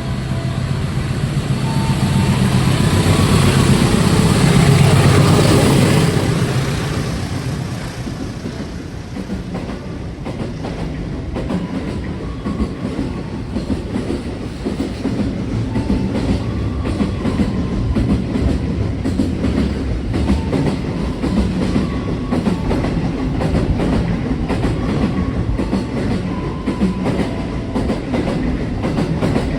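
A train passing close by. The loudest stretch comes a few seconds in as the front of the train goes past, and after that the carriages roll by with a steady clickety-clack of wheels over the rail joints.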